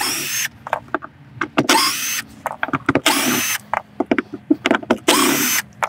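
Cordless drill backing screws out of a boat seat pedestal's base plate on the floor: four short runs of about half a second each, the motor whine rising as each run starts, with small clicks of handling between them.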